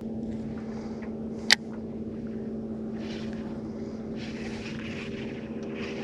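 A boat motor running with a steady, even hum that starts abruptly, and one sharp click about a second and a half in.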